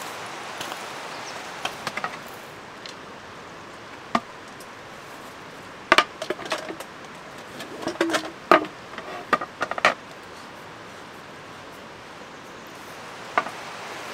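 A few sharp knocks and clatters, mostly bunched in the middle, over a steady background hiss.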